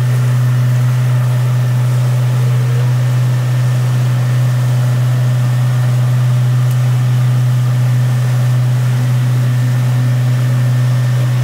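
Motorboat engine running at a steady speed: a constant low drone that does not rise or fall.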